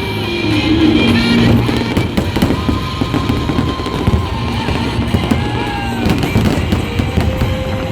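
Fireworks bursting and crackling over music played with the display.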